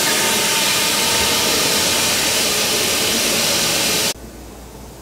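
Loud steady rushing hiss in a workshop, cutting off abruptly about four seconds in, leaving a much quieter background hum.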